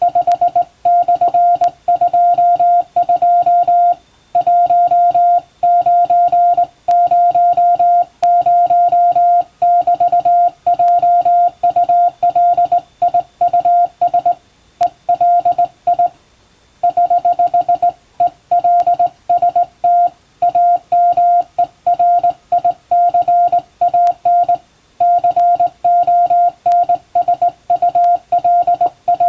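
Morse code sent by hand on a straight telegraph key, heard as a steady mid-pitched tone of about 700 Hz keyed into dots and dashes. Short gaps separate the characters and words, with a longer pause about two-thirds of the way through.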